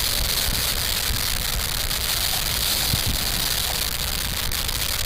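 Steady rush of floodwater pouring from Table Rock Dam's outlets, an even hiss over a low rumble.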